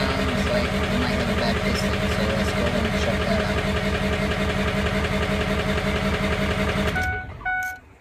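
Ford 6.0L Powerstroke V8 turbo-diesel idling, a sound called not normal, with a dead number 8 cylinder. It shuts off abruptly about seven seconds in, followed by two short electronic beeps.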